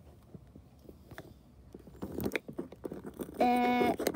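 Small plastic knocks and scrapes of toy dolls being handled against a plastic cup and tray, getting busier about halfway through. Near the end, a short steady pitched tone lasting about half a second.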